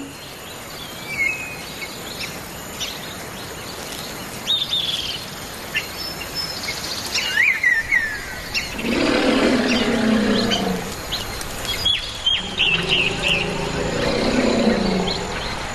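Wild birds chirping and whistling throughout. In the second half an elephant gives two long, low calls that fall in pitch.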